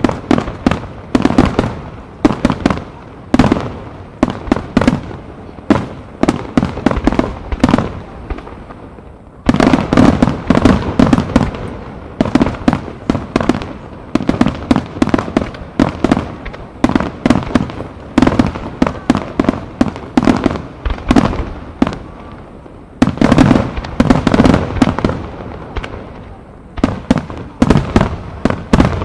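A Japanese starmine fireworks barrage: aerial shells bursting in rapid succession, several bangs a second. The bursts come thickest in two heavy volleys, one about ten seconds in and another about two-thirds of the way through.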